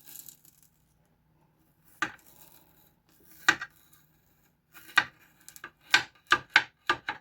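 Kitchen knife chopping through raw potatoes, each stroke a sharp knock. Three widely spaced chops are followed by a quicker run of strokes, about two a second, near the end.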